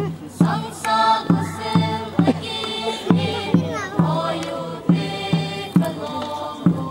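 A group of voices singing a chant-like Kuki traditional dance song over a steady drum beat of a little over two beats a second.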